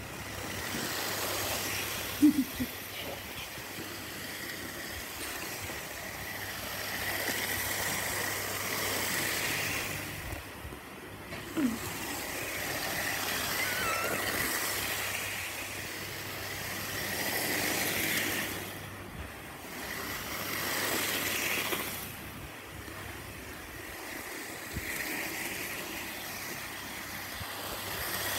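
Model train running on its track, a steady rolling whir and rattle that swells and fades every few seconds as it goes round. Two short, sharp sounds break through, one about two seconds in and one near the middle.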